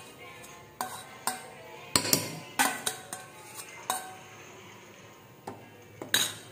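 A metal spoon scraping and knocking against a metal pan: a series of sharp clinks with short ringing, the loudest about two seconds in and again near the end.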